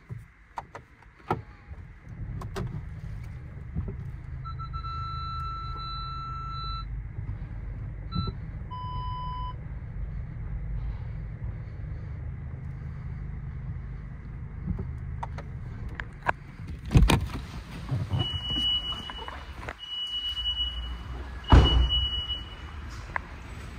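Steady low machine hum with several electronic beeps: one long beep, a short one and a lower one in the first half, then three short higher beeps near the end. Two sharp thunks come in the second half.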